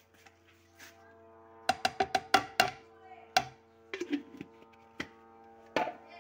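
Background music of steady held tones, with a run of sharp, irregular knocks in the first half and a few more later.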